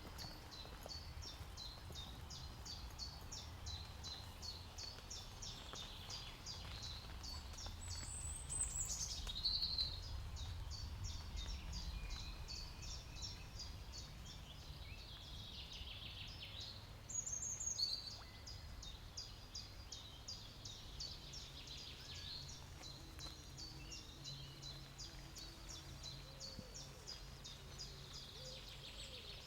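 Woodland birdsong: one bird repeats a short high note about three times a second throughout, and other birds give two louder falling calls, about 8 and 17 seconds in, over a low steady rumble.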